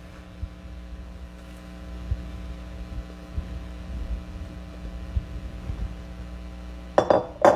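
Chopped kale being stirred in a cooking pot: soft, irregular knocks and thumps over a steady electrical hum.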